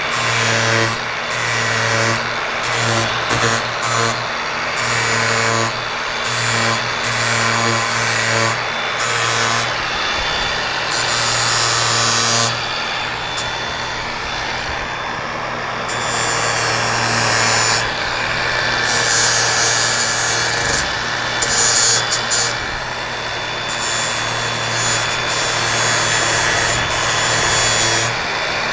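Angle grinder with a coarse flap disc grinding the fiberglass tip of a dinghy centerboard, its motor running steadily with frequent brief dips as the disc is pressed on and lifted off the glass.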